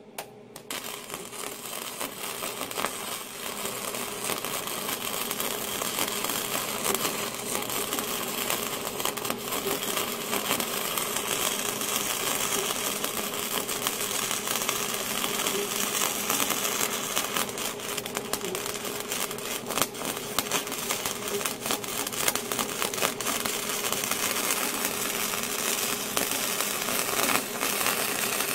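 Flux-core MIG welding arc from a Hobart Handler 120 welder, a steady crackling sizzle that starts about half a second in and keeps going without a break.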